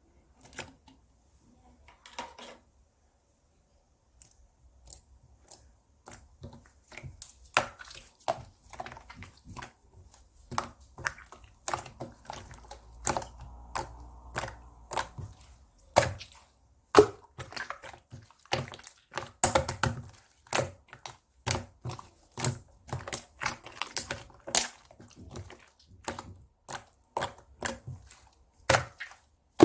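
Cream cheese slime being squished, pressed and stretched by hand, making rapid sticky clicks and pops. The clicks are sparse for the first few seconds, then come thick and fast.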